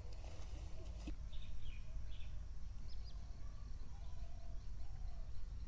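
Rural outdoor ambience: a steady low rumble, a brief burst of noise in the first second, and a few short bird chirps in the middle.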